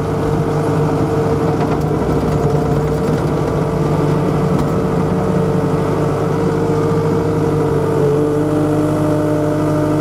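Takeuchi tracked skid steer's diesel engine running steadily under load while its bucket pushes snow, with a steady whine on top that drops in pitch about eight seconds in.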